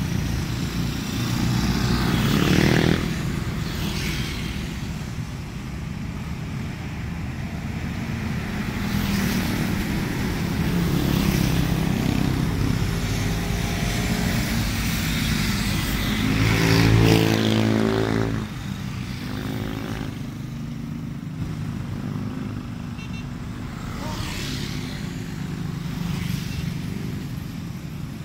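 Road traffic: several vehicles pass one after another over a steady low rumble, and their engine notes swell and fade. The loudest pass comes about two-thirds of the way through.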